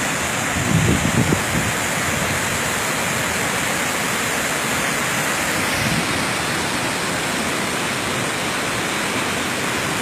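Waterfall and the shallow river rushing over rocks below it: a steady, even noise of falling and running water.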